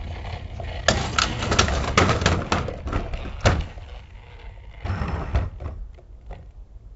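Toy vehicles being handled: a quick run of sharp knocks and clatters, then a brief scraping rattle about five seconds in.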